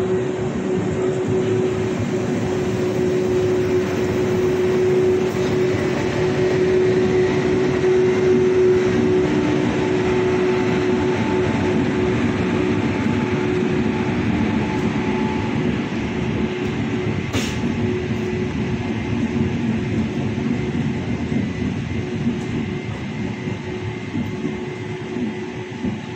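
12939 Pune–Jaipur Superfast Express running along the track: a steady, loud rumble of coaches on the rails with a constant hum through it. There is a single sharp click about seventeen seconds in.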